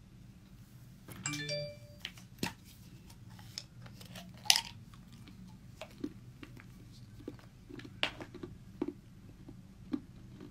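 A brief chime of several tones about a second in, then scattered light taps and clicks, the sharpest about four and a half seconds in, over a low steady hum.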